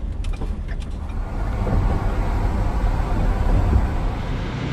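Cargo van driving on the road, heard from inside the cab: a steady low rumble of road and engine noise.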